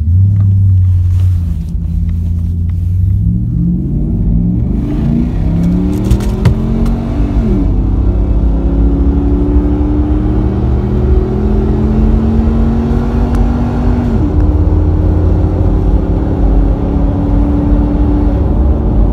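Pickup truck engine heard from inside the cab, accelerating hard. Its pitch climbs steadily and drops sharply about 7 s in, again about 14 s in, and once more near the end, as the automatic transmission upshifts.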